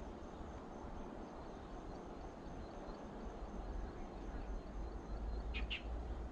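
Outdoor ambience at a weedy pond: wind rumbling on the microphone, gusting stronger near the end, over a faint steady high tone. Two quick high chirps, like a small bird, come just before the end.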